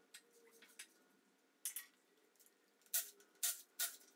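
Sharp metallic clicks from tools at work on the front of an LS V8 during a cam swap: a short cluster about two-thirds of the way in, then three loud clicks about half a second apart near the end, over a faint hum.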